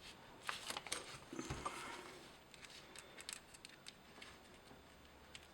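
Light clicks and taps of small metal chainsaw oil-pump parts and a hand tool being handled on a bench: a cluster of sharp clicks in the first second, a soft knock about a second and a half in, then scattered faint ticks.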